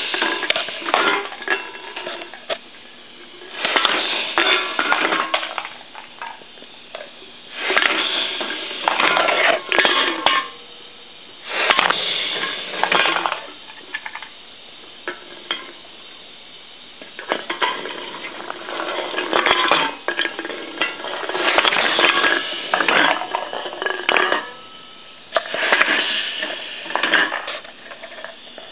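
All-pneumatic automatic can crusher cycling through aluminium beer cans: cans rattle down the S-shaped steel chute and the air cylinder crushes each one in the chamber. The result is a burst of metal clatter and crunching about every four seconds, seven times over.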